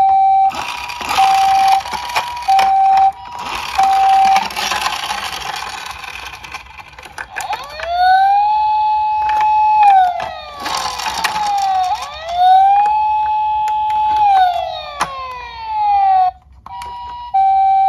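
Battery-powered toy ambulances' electronic sirens: a two-tone hi-lo siren alternating for the first few seconds with a rough, hissy noise over it. After a short lull comes a wail that rises, holds and falls, twice.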